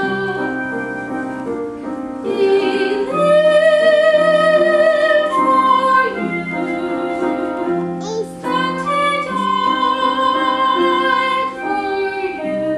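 A woman singing a slow song live over piano accompaniment. Her held notes waver with vibrato.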